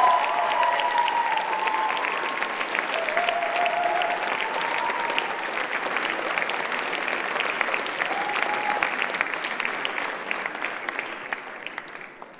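Audience applauding, dense clapping with a few long cheering shouts over it, the applause slowly dying away near the end.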